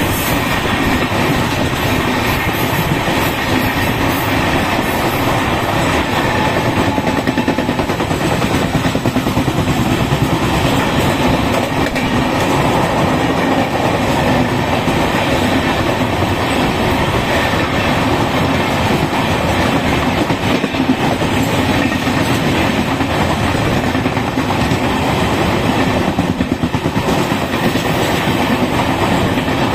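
Two Indian Railways express trains running side by side at speed on parallel tracks, heard through an open coach window: a loud, steady rumble and clatter of wheels on rails.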